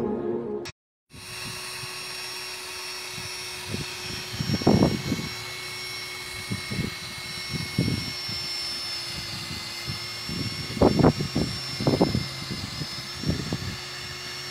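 Cordless drill running steadily with a foam polishing pad, buffing a car's plastic headlight lens, with a steady high whine. Short louder bursts come and go over it.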